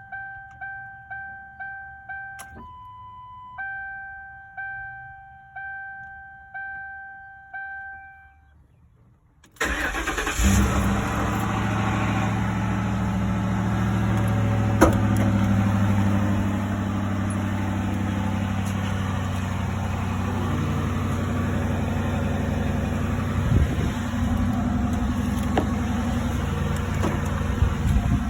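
A car's warning chime dings about twice a second, broken once by a longer, different tone. Then, about nine and a half seconds in, the engine starts and runs steadily with an exhaust leak.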